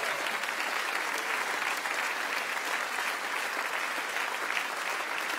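Audience applauding: steady, dense clapping throughout.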